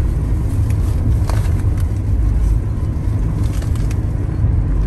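Steady low rumble of a moving road vehicle, with a few faint clicks.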